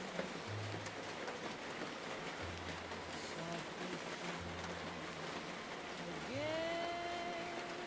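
Steady rain hiss over faint, muffled old-time music as if heard from another room: soft bass notes underneath, and about six seconds in a held note that slides up into pitch.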